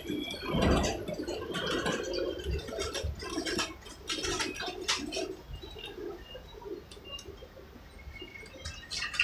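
Irregular clicking and rattling of a wooden passenger coach rolling along a narrow-gauge railway.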